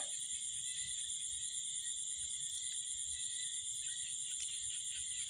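Insect chorus: steady high-pitched trilling in several layered bands, with one brief knock at the very start.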